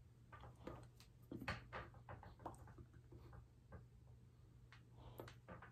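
Faint, irregular soft clicks and taps from a signer's hands meeting and moving as he signs, the loudest about a second and a half in, over a faint steady low hum.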